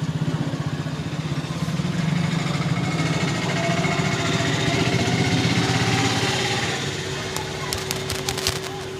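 A motor vehicle's engine passing close by: its pulsing note swells through the middle and fades after about seven seconds. A quick run of sharp clicks comes near the end.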